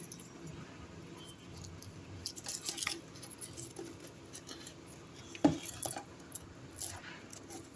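Kitchen utensils and dishes clinking and knocking: a cluster of light clicks, then one sharp knock about halfway through followed by a few lighter taps.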